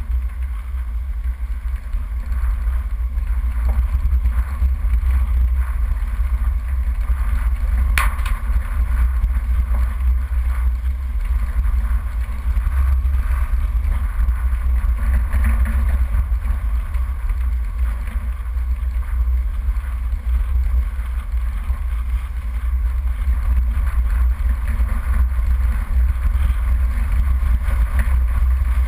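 Steady low rumble of a 4x4 driving along a rough dirt track, picked up by a camera mounted on the bonnet, with a single sharp knock about eight seconds in.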